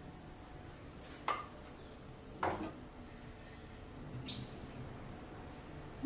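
Glazed chicken pieces sizzling softly in a frying pan, with three short, sharper sounds about one, two and a half, and four seconds in.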